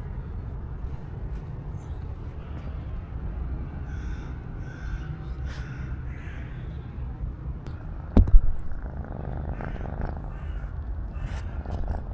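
Tabby kitten purring in a steady low rumble while being stroked, with a single sharp knock about eight seconds in.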